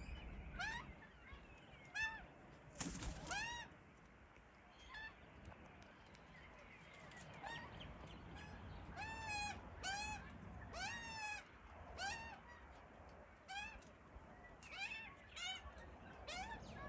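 Baby Australian magpies giving hungry begging calls. The short cries rise and fall in pitch and repeat every half second to a second, pausing for a few seconds about four seconds in.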